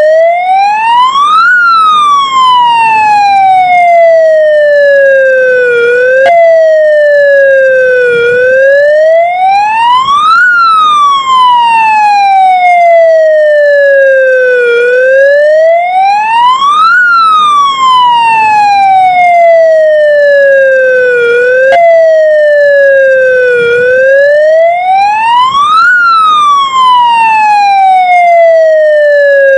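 Ukrainian ambulance siren sounding a slow wail. Its pitch climbs quickly for about two seconds, then falls away more slowly, four times over, with two sudden small jumps in pitch partway through.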